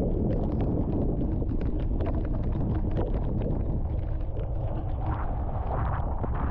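Rain pattering on a car in a downpour, many small drop ticks over a steady low rumble of wind and the car driving slowly on a gravel road.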